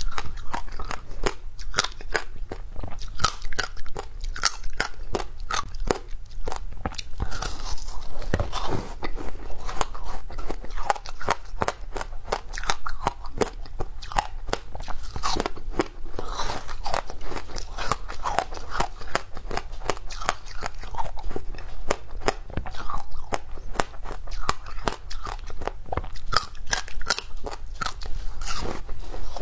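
Teeth biting into and chewing frozen passion fruit ice, a dense run of sharp crunches and crackles as the ice breaks.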